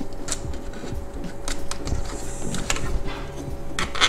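Small screwdriver prying and scraping at the plastic housing and locking clips of a BMW E36 instrument cluster: a scatter of light plastic clicks and taps.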